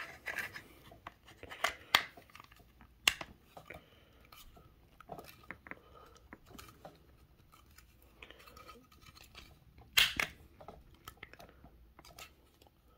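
Cardboard box being handled and opened by hand: scattered rustles and sharp clicks, with a louder snap about ten seconds in.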